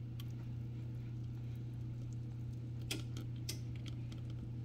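Pumpkin pie filling poured slowly from a mixing bowl into an unbaked pastry shell: a soft, quiet pour with a few faint clicks of the bowl about three seconds in, over a steady low hum.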